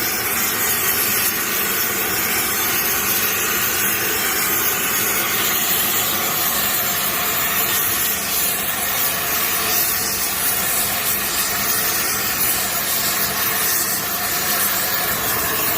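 Gas heating torch burning with a steady, even hiss, used to heat the bent diff housing red hot so it can be straightened.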